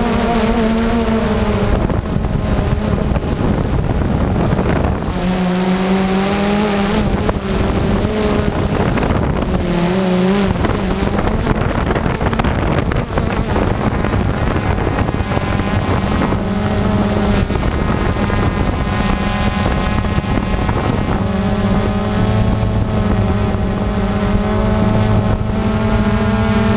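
DJI Phantom quadcopter's motors and propellers buzzing, heard from the camera mounted on the drone. The pitch of the buzz shifts up and down as the motors speed up and slow down while it flies.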